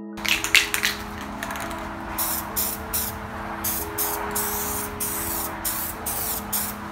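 Aerosol spray paint can hissing as a black base coat is sprayed onto a plastic instrument cluster bezel, the hiss swelling and dipping a few times a second with the sweeping passes. Background music plays underneath.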